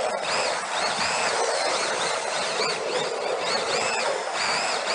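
Small electric motors of 1:18-scale RC drift cars whining up and down in pitch over and over with the throttle, over a steady hiss of tyres sliding on the floor.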